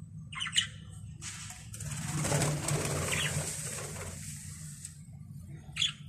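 Budgerigars chirping, a short call about half a second in and another near the end, with a few seconds of fluttering wings in between. A steady low hum runs underneath.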